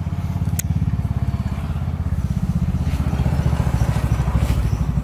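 Low, steady, rapidly pulsing rumble of an engine running, with a single sharp click about half a second in.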